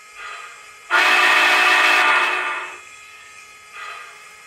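Sound system of an MTH HO-scale Union Pacific Big Boy model locomotive sounding its steam whistle: one long blast about a second in, lasting nearly two seconds, with a brief fainter sound shortly before and another near the end, over a faint steady background of the standing engine.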